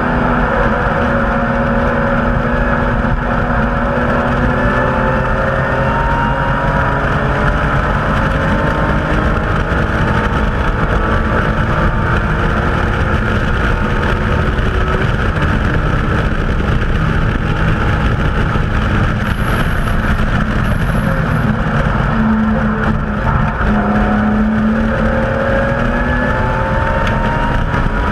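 BMW M Coupe's straight-six engine running at racing pace, its pitch climbing steadily for several seconds at a time and dropping back at the gear changes, over constant road and wind noise.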